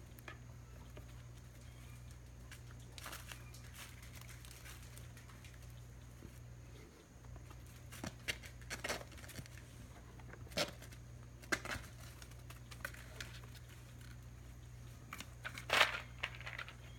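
Kittens scampering and pouncing on a plastic-backed puppy pad: scattered short crinkles and scratches, more frequent in the second half, the loudest near the end. A low steady hum runs underneath.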